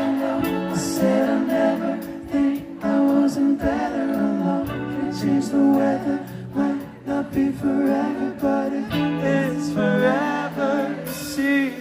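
A pop song performed live: singing over guitar and steady held bass notes.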